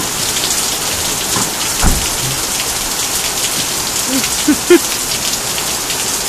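Very heavy tropical-storm rain pouring steadily onto cars and pavement. A low thud about two seconds in and a few short, sharper sounds around four and a half seconds in stand out above it.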